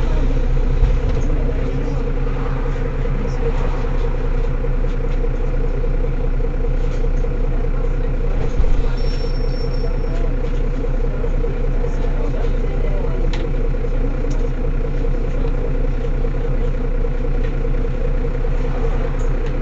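Mercedes-Benz Citaro city bus engine idling steadily while the bus stands still, an even low rumble.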